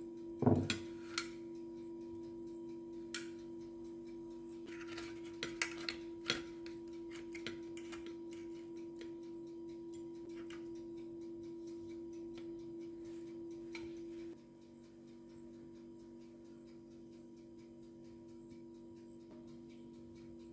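A metal baking tray clatters as it is set down, then a fork and tongs click and scrape against the tray as baked cassava pieces are lifted onto a plate, over a steady low hum that partly drops away about two-thirds of the way through.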